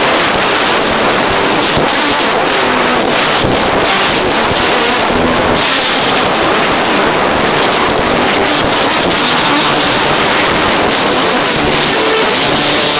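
Live gospel band and congregation playing and singing loudly, so loud that the recording is overloaded and distorted: drums, keyboard and voices blur into one dense noise with drum hits showing through.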